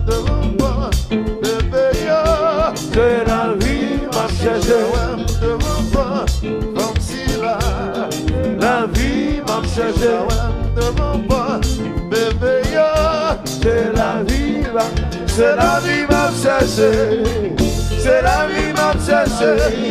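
Haitian konpa band playing live, with a steady drum beat under the instruments and a man singing lead.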